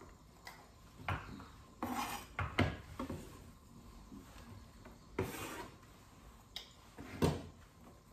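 Scattered knocks and clinks of a small glass bowl and kitchen utensils against a wooden cutting board as sliced red onion is handled and put into the bowl, about seven separate strikes, the loudest one near the end.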